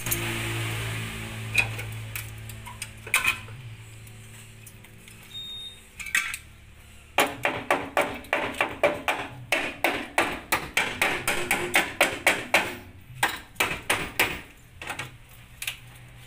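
Hammer striking the steel patch welded into a rusted car chassis: a quick run of sharp metal knocks, about three to four a second, from around seven seconds in to about thirteen seconds, then a few spaced knocks that stop about two thirds of the way through the second half. A low steady hum is heard in the first few seconds.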